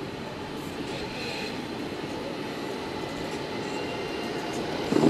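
Steady low rumble of electric skateboard wheels rolling over asphalt. A brief, louder pitched sound comes at the very end.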